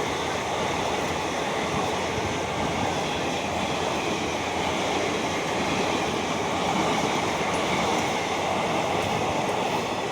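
Express train running past on the tracks: a steady noise of wheels on rails.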